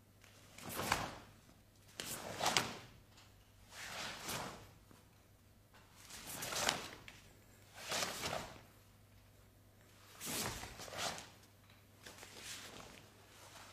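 Swishes of a karate gi and bare feet sliding on a mat as a kata is performed, about seven separate movements, each under a second. A faint steady hum runs beneath.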